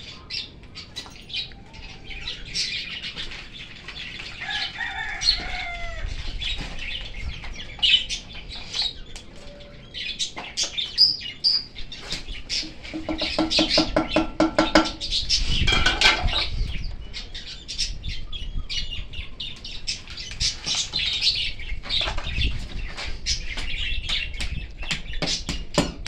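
Birds chirping and calling over many short scrapes and knocks as soil and gravel are packed by hand into a plastic bucket around a dry branch, with one longer steady call about halfway through.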